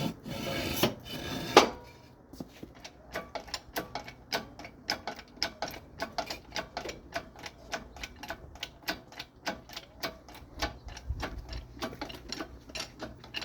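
A ratchet mechanism clicking in a fast, uneven run of about three to four clicks a second, after a short rustle and a single sharp knock near the start.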